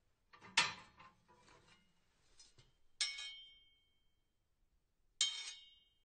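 Fireplace tool set being handled: metal tools clattering and scraping against each other, then two sharp metallic clanks, about three seconds in and near the end, that ring on briefly.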